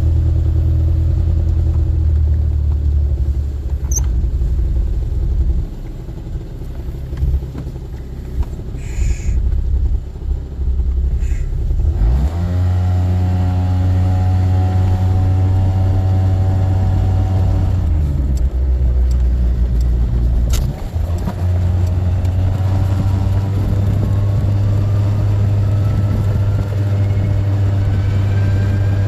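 Honda Gyro Canopy scooter's engine running and pulling away. About twelve seconds in, a drone rises in pitch and settles into a steady hum; after about twenty seconds it climbs again with a rising whine. This is the buzzing abnormal noise that the owner says sets in above about 20 km/h.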